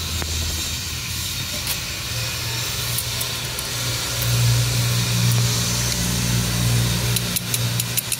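A steady low engine hum with hiss runs throughout. Near the end come a few light metallic clicks from snap-ring pliers working a circlip on the gearbox shaft.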